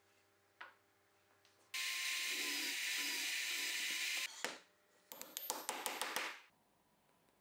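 Drill press boring through birch plywood, running steadily for about two and a half seconds before it stops. A quick run of about eight sharp taps on the plywood follows near the end.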